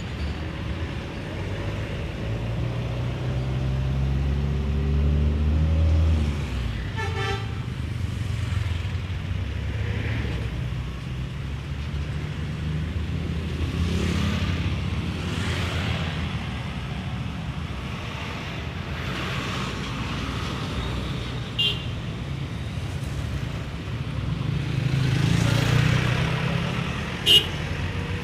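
Intercity buses and traffic passing on a road. A bus engine rumbles louder as it nears over the first six seconds. A short horn sounds about seven seconds in, and two short, sharp high toots come near the end, the last one the loudest.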